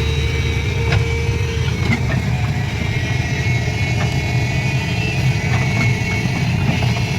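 An engine running steadily at an even speed, a deep continuous rumble with a few light clicks over it.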